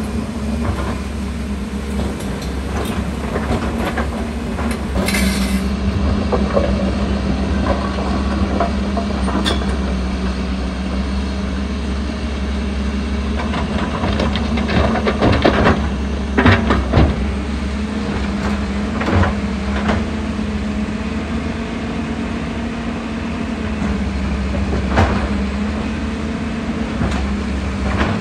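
Hyundai 220LC excavator's diesel engine running steadily with a deep hum. Clattering knocks about halfway through and again near the end are rock being dumped from the bucket into a dump truck's bed.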